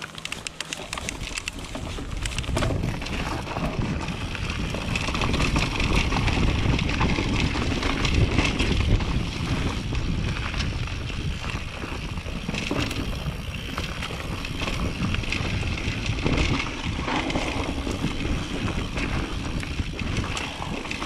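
Mountain bike with Maxxis DHF tyres riding down a dirt trail: a continuous tyre rumble over the ground with the bike's parts clicking and rattling over bumps, and wind buffeting the camera microphone.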